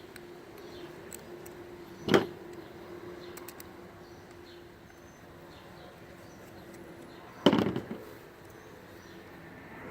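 Two sharp clacks about five seconds apart from the hair clipper and its parts being handled during reassembly, the second followed by a brief rattle. A faint steady hum runs underneath.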